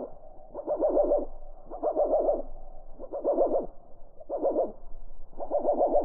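European goldfinch twittering slowed down by slow-motion playback, so the calls come out as low, pulsed, hooting warbles, one burst of rapid pulses about every second.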